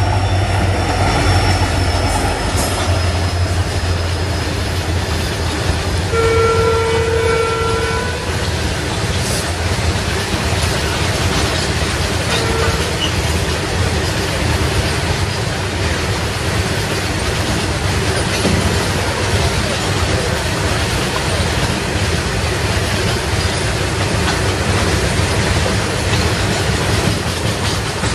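Diesel freight locomotive passing with its engine running, followed by a long train of covered goods wagons rolling by with a steady rumble and clatter of wheels on the rails. A train horn sounds for about two seconds some six seconds in, and briefly again about twelve seconds in.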